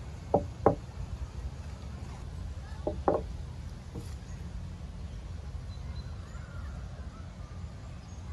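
A crow cawing: two short caws near the start and two more about three seconds in, over a steady low rumble.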